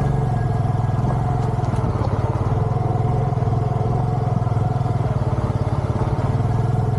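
An engine running at a steady speed, with a constant low hum that neither rises nor falls.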